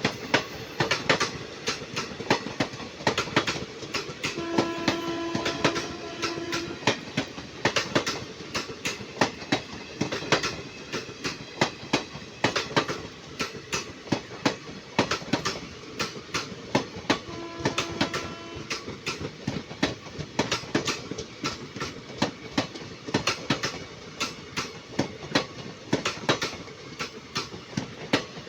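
Indian Railways train running, its wheels clattering over the rail joints in a fast, uneven run of clacks. A horn sounds about four and a half seconds in for about two seconds, and again briefly around eighteen seconds.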